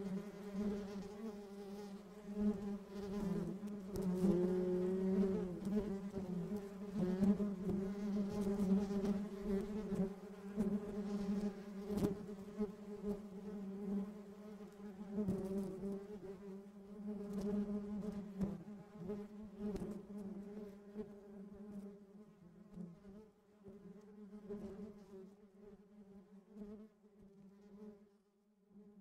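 Honeybee buzzing steadily with a low, even hum as it works over a dandelion flower, growing fainter over the last few seconds.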